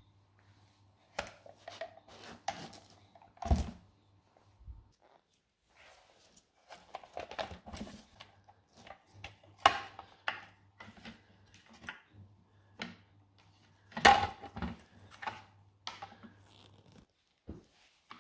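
Plastic housing halves and internal parts of a Dewalt DCN692 cordless framing nailer being handled and pulled apart: irregular clicks, knocks and rattles, with a few louder knocks.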